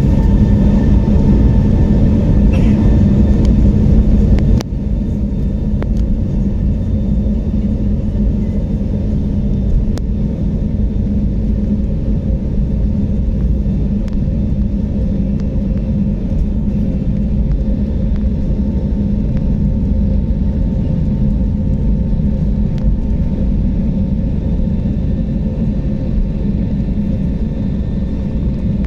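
Steady low rumble of jet engines and airflow inside the cabin of an Airbus A321neo airliner, with a faint whine that fades in the first few seconds. The rumble drops a little in level about four and a half seconds in.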